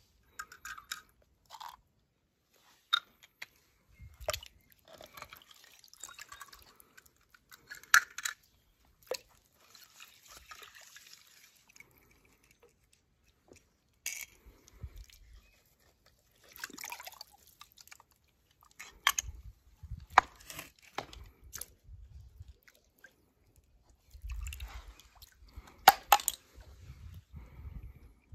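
Plastic toy cars handled by hand: irregular clicks, crunches and short rustles, with sharper knocks about eight seconds in and near the end.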